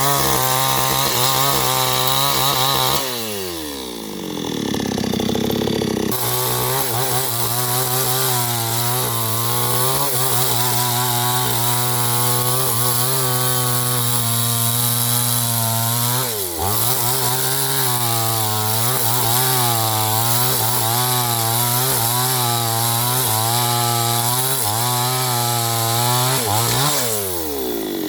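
New West 628 two-stroke chainsaw running at full throttle while cutting wood, its engine pitch wavering under the load. About three seconds in the throttle is released and the engine falls to idle. It revs back up a few seconds later, dips briefly midway, and drops off again near the end.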